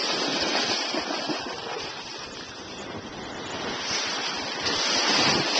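Thick silty slurry pouring from a tin into a sample bottle: a steady wet rushing and splashing noise that eases about two seconds in and swells again near the end.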